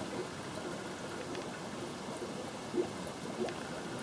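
Steady trickling and bubbling of aquarium water, with faint small ticks scattered through it.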